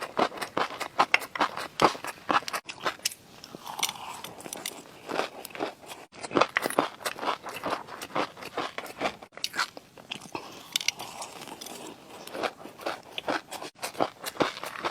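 Close-miked crunchy chewing: a quick, irregular run of sharp crunches and clicks as food is bitten and chewed.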